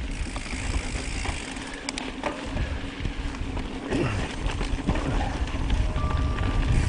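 Mountain bike rolling over a rocky dirt trail: tyre noise with the chain and frame rattling and knocking over bumps, and wind rumbling on the camera microphone.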